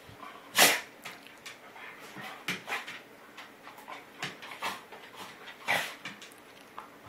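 A dog making short, sharp vocal sounds while play-boxing, about half a dozen in all. The loudest comes about half a second in, and another strong one near the six-second mark.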